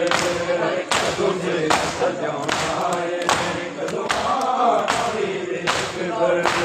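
A crowd of men chanting a Punjabi noha together, with sharp, evenly timed chest-beating (matam) strikes about one every 0.8 seconds.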